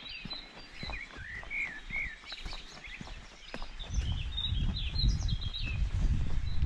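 Several birds chirping with short, repeated calls. Light footsteps sound on a dirt track. From about four seconds in, a low, gusty rumble of wind on the microphone comes up and becomes the loudest sound.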